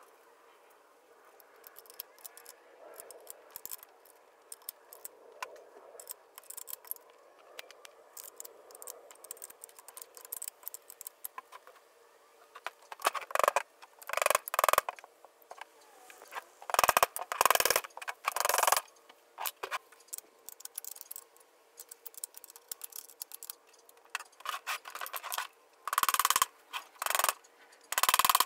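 Hand tools and metal engine parts clicking and scraping against a Volkswagen 1600 engine case as it is taken apart. Light scattered clicks come first, then several loud scraping, clattering bursts about halfway through and again near the end.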